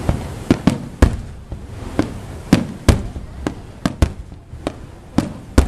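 Fireworks going off in a rapid, irregular string of sharp bangs, more than a dozen in a few seconds, each followed by a short rumbling echo.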